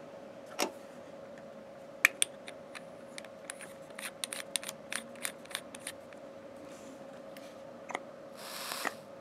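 Small metallic clicks and scrapes as a battery goes back into a brass mechanical mod tube and its threaded parts are screwed together. Near the end comes a short hiss as the dual coils of the rebuildable dripping atomizer fire on e-liquid-soaked cotton.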